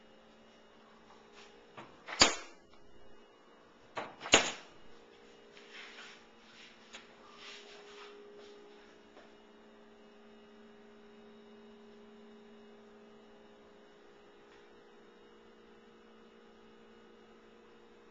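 Steady electrical hum, broken by two sharp knocks about two seconds apart and then a few lighter clicks and rustles.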